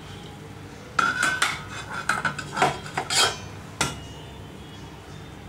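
Steel kitchen utensils clinking and rattling against each other, a quick run of knocks with a bright metallic ring, lasting about three seconds and stopping near the end. These are the stainless-steel murukku press and its parts being handled before greasing.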